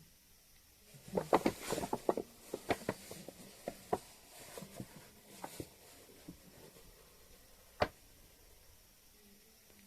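A cluster of sharp clicks and taps lasting a few seconds, then one more click later. Under them runs a cat's faint, low snoring.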